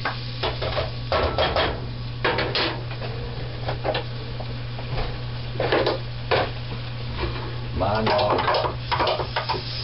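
Metal kitchen utensils and pans clattering on the stove: a string of short knocks and clinks, over a steady low hum.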